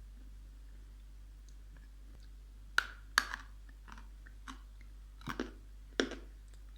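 Close-up crunching and chewing of dried edible clay: a few sharp, brittle crunches as pieces of Ural clay are bitten and ground between the teeth.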